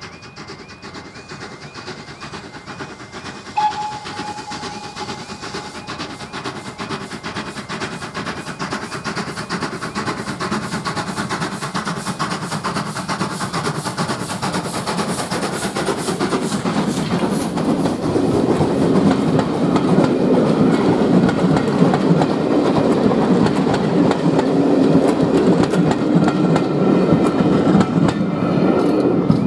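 GWR 5700 Class 0-6-0 pannier tank steam locomotive working a passenger train past, its exhaust beats growing louder as it approaches, with a brief whistle note about three and a half seconds in. The coaches' wheels then clatter over the rail joints, loudest over the last ten seconds as the train goes by.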